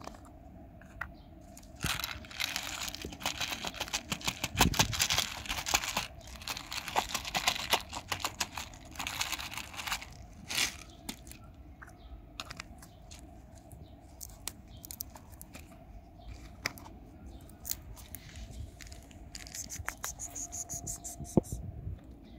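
Dry cat kibble poured out of a plastic bottle, rattling onto wooden boards in a dense run of clicks for several seconds, then a few scattered clicks.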